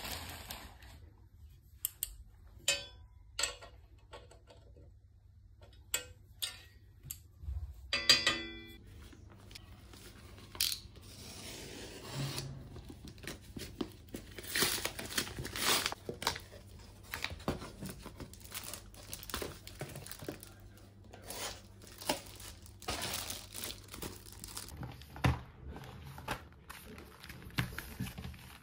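Light metallic clicks from an aluminium laptop stand being tightened with a hex key, with one short ringing knock about eight seconds in. After that, brown paper packaging is torn open and crumpled, in a long run of rustling and ripping.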